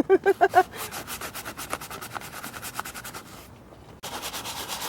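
A brush scrubbing soap-lathered saddle leather in rapid, even strokes, about five a second, with a short lull near the end before the scrubbing resumes louder. It opens with a few short voiced sounds, the loudest thing here.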